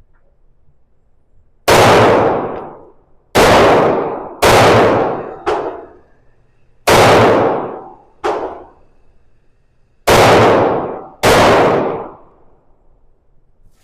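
Eight pistol shots from a SIG P365 X-Macro fired at an unhurried, uneven pace, six loud and two fainter, each with a short ringing tail.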